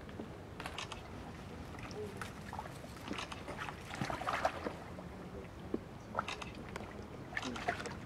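River otters feeding in shallow swamp water: irregular splashing and sloshing as they dive and surface, with a louder flurry of splashes about four seconds in.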